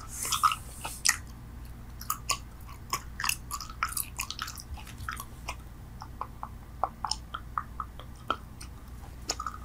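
A person chewing bubble gum: an irregular run of short clicks and smacks, several a second.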